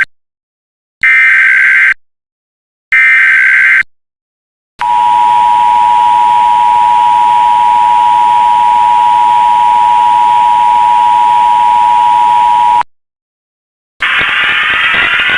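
Emergency Alert System SAME header: harsh digital data bursts of about a second each, repeated with short gaps. Then comes the EAS attention signal, a steady two-tone alarm (853 and 960 Hz) held for about eight seconds, which marks the start of an emergency alert, here an Amber Alert. After a brief gap near the end, a different sound with several tones begins.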